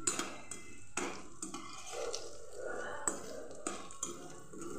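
A metal slotted spoon stirring fox nuts and chopped nuts frying in oil in a kadhai, scraping around the pan with irregular clinks and knocks against its side.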